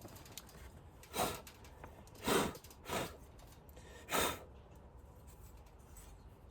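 A man breathing out heavily in four short sighs or puffs, the second the loudest.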